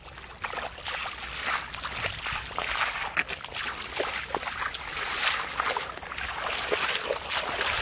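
Two people's feet wading through shallow muddy water, sloshing and splashing irregularly with each step.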